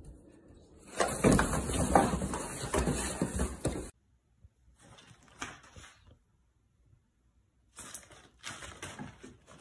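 Cardboard box rustling and scraping for about three seconds as a dog paws and noses at it with a cat inside, then it cuts off abruptly. Afterwards there are only a few faint light taps.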